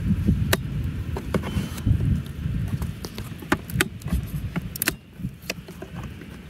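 Scattered sharp plastic clicks and taps as a robotic-mower charging station circuit board is worked into its slot and push-in clips, over a low rumble.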